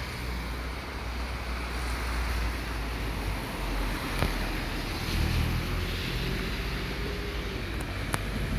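Street background noise: traffic going by, with a low steady rumble of wind on the microphone. A faint engine tone rises out of it about five seconds in and falls away near the end.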